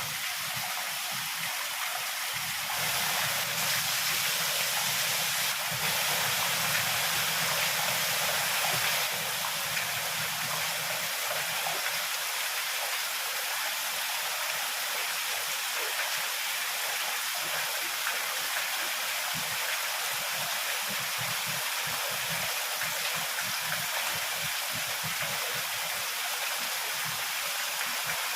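Heavy rain falling in a steady, dense hiss. For a few seconds from about three seconds in it grows a little louder, with a low rumble underneath.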